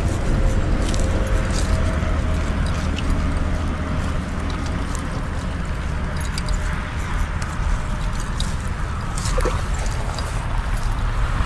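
Steady low rumble of interstate traffic, with a few light clicks and faint water splashing from a hooked catfish being played at the pond's edge.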